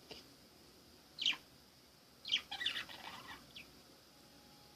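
Small pet birds chirping: a single short falling chirp about a second in, then a quick run of several chirps a second later.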